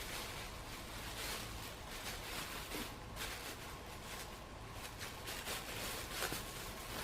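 Plastic packaging rustling and crinkling as it is handled, with a couple of light clicks near the end.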